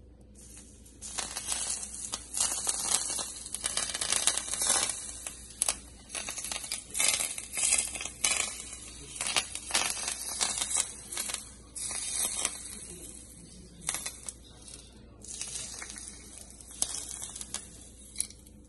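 Hot olive oil poured from a saucepan over raw tuna sashimi and green onions, sizzling and crackling as it hits. It starts about a second in and comes and goes in uneven spurts.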